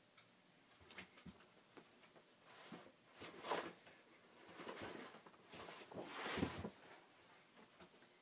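Soft swishing and rustling of wet paper and water as washed book pages are lifted out of a shallow water bath, in two short runs with a few light clicks before them.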